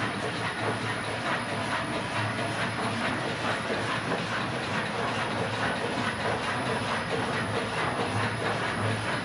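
52-inch LeBlond engine lathe running under power, its large faceplate chuck spinning. It makes a steady clattering mechanical rattle over a low hum.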